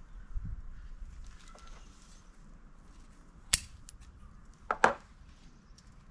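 Bonsai scissors snipping through azalea roots: one sharp snip, then about a second later two more in quick succession, over soft rustling of soil and roots being handled.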